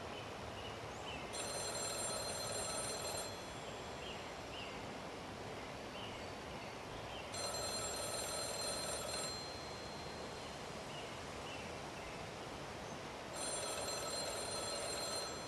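Payphone ringing: three rings of about two seconds each, with about four seconds of quiet between them.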